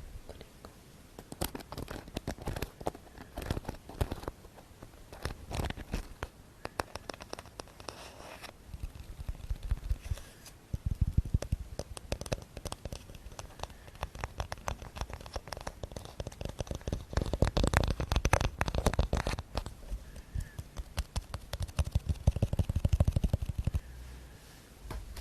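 ASMR tapping and scratching close to the microphone: separate taps at first, then fast runs of rapid taps about halfway through and again in the last third.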